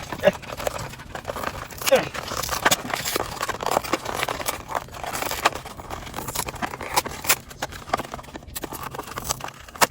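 Plastic blister and cardboard backing of a carded action figure being torn and pried open by hand: crinkling, tearing and many sharp clicks.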